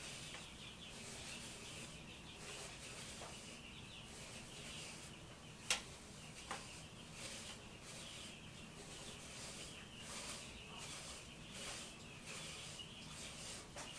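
Soft, steady rubbing of a brush stroked over the skin of a person's arm, with two sharp clicks a little after the middle.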